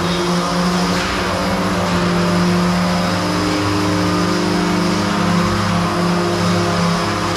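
Small combat robots' electric motors, their spinning weapons and drives, making a steady whine with several pitches held, some shifting as the motors change speed.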